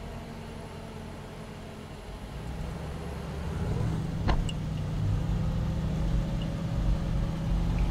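Range Rover Sport's engine working under load as it climbs a sand hill, heard from inside the cabin, growing louder about three seconds in as the tyres churn through the sand. A single sharp knock about four seconds in.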